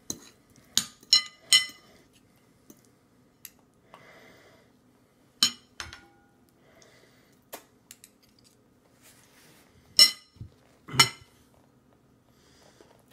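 Metal spoon clinking against a plate as food is scooped up: sharp ringing clinks, three in quick succession about a second in, another around the middle, and the two loudest near the end.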